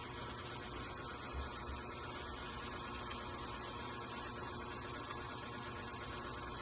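Steady low hum with an even hiss, unchanging throughout: background noise of the recording.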